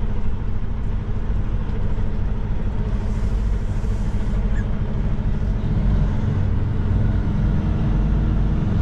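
Semi truck's diesel engine running steadily while driving, a continuous low drone heard from inside the cab. A faint hiss comes and goes about three seconds in.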